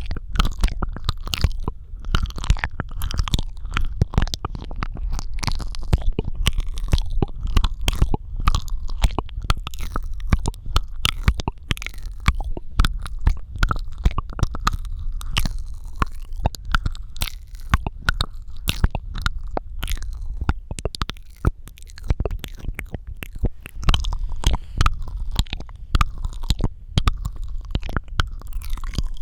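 ASMR mouth sounds close to the microphone: a fast, irregular run of wet clicks, pops and smacks of tongue and lips.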